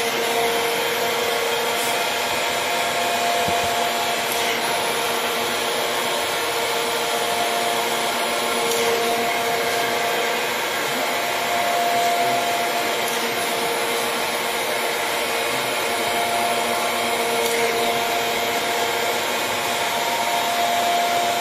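Gallmeyer & Livingston Grand Rapids 660 surface grinder running steadily, its 14-inch wheel grinding a small steel part as the table traverses under hydraulic power. The grinding hum rises and falls gently every few seconds.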